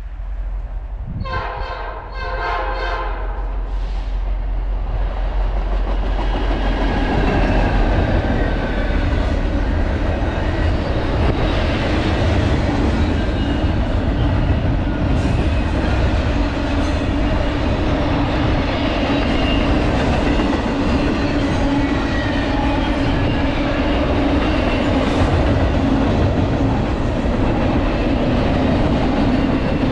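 Norfolk Southern freight train: the locomotive horn gives two short blasts about a second in, then the train crosses the bridge overhead with a loud, steady rumble and rattle of wheels on rails under double-stack container cars.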